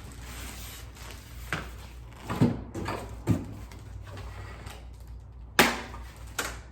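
Cardboard packaging being handled and pulled from a box: a series of knocks and scrapes, with a louder rasping scrape about five and a half seconds in.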